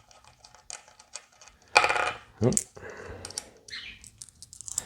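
Small metal guitar hardware clinking and rattling as it is handled on a workbench: a string of light metallic clicks, with a louder clatter about two seconds in. A brief vocal sound follows just after.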